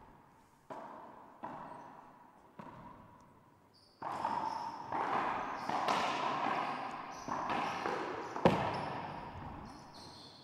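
A racquetball rally: the ball cracks off racquets and the court walls again and again, each hit ringing on in the enclosed court. A few lighter hits come first, then quicker, louder exchanges, the sharpest crack near the end.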